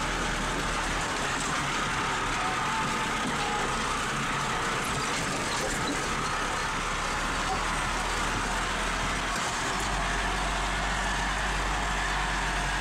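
Diesel engine of a red farm tractor with a front loader, running steadily under load as heard from the driver's seat.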